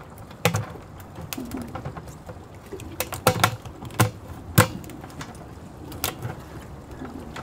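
Knife cracking a blue crab's shell in half on a plastic bucket lid: a series of sharp cracks and clicks, most of them between three and five seconds in.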